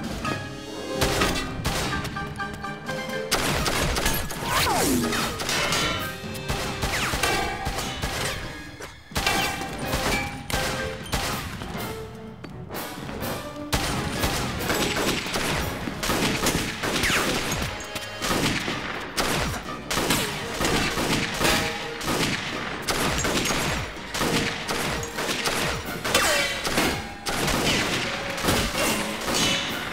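A gunfight of pistol shots fired in quick succession, many shots with brief pauses now and then. An action music score plays underneath.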